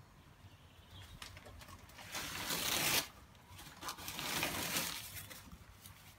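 Dog rummaging through newspaper inside a plastic pet carrier: paper rustling and crumpling in two loud spells, the first about two seconds in and the second about four seconds in, with a few light clicks between.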